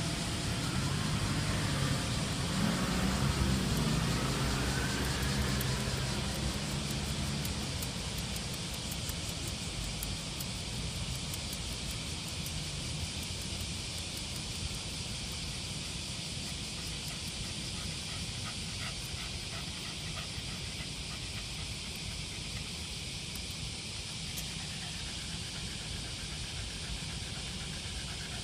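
A motor vehicle passes in the first several seconds, then fades into steady outdoor background hiss with a few faint light clicks.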